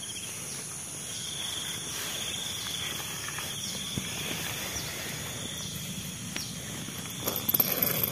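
Insects trilling and buzzing steadily in the background, with a few short rustling and handling sounds near the end.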